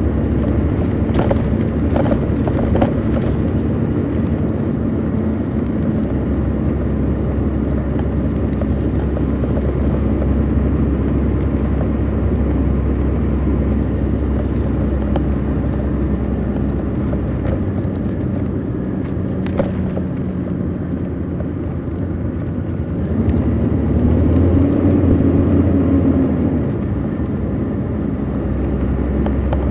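Detroit Diesel Series 60 inline-six diesel of a 2002 MCI D4000 coach, heard from aboard the bus, running steadily under way with a few sharp rattles in the first three seconds and one near twenty seconds in. About twenty-three seconds in the engine note climbs and grows louder, then drops back near twenty-seven seconds.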